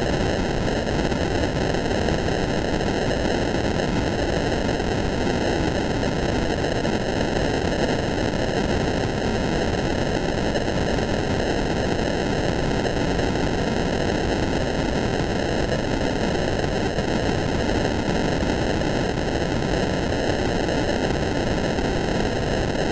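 Steady static hiss with a hollow, comb-filtered tone: the 'blind and deaf' sound effect, unchanging throughout.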